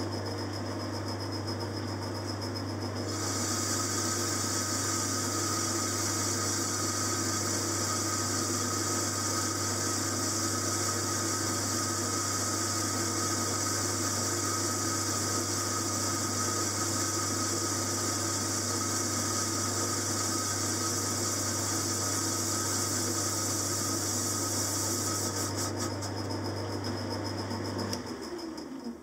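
Metal lathe running with a steady motor hum while turning a cast-iron model-engine flywheel; a steady high hiss from the cut joins in about three seconds in. Near the end the motor is switched off and the sound runs down.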